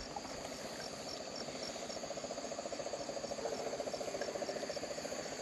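Crickets and other night insects calling steadily, with a high chirp repeating about three times a second over a lower rapid trill that swells in the middle and eases near the end.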